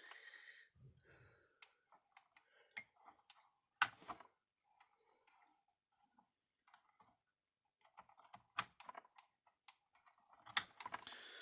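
Scattered sharp clicks and light knocks with quiet stretches between, the loudest about four seconds in and again near nine seconds: wire connectors being plugged onto a replacement circuit board inside a Gallagher M1200i electric fence energizer.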